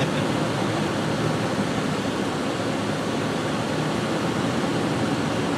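Steady rushing noise of a vehicle driving along a snowy road, with engine, tyre and wind noise blended into one even hiss.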